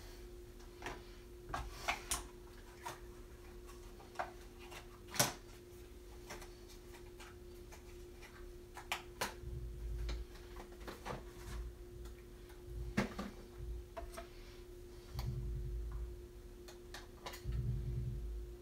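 Scattered small clicks and taps of makeup cases and compacts being handled and put away, over a steady faint hum. A couple of dull low rumbles come near the end.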